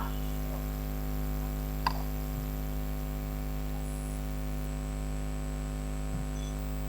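Steady electrical hum with a hiss of static on the recording line, with one sharp click about two seconds in and a fainter one near the end.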